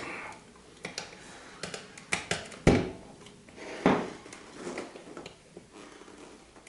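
Metal hand tools clinking and knocking while a motorcycle tire and wheel are handled, with two louder knocks about three and four seconds in.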